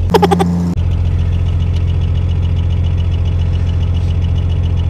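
1997 Dodge Ram's 5.9 Cummins inline-six turbo diesel idling steadily at about 900 RPM while still cold, with a light, even ticking of diesel clatter over the low hum. A short louder sound comes at the very start.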